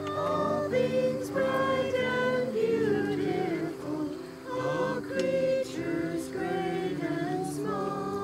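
A small congregation singing a hymn, a woman's voice out in front, over steady held notes.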